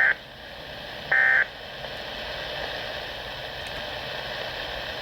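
Weather radio alert data bursts (SAME header tones) from a Weatheradio Canada broadcast. The end of one short, shrill digital burst comes right at the start and another follows about a second in. Then there is steady radio hiss; the bursts encode the severe thunderstorm alert for receivers.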